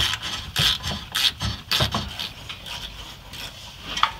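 Steel thread tap being turned with a wrench up through a rusty frame bolt hole, scraping and rasping in short strokes about twice a second, then dying down after about two seconds, with one more scrape near the end. The tap is cutting rust out of the threads so the bolts can thread in without cross-threading.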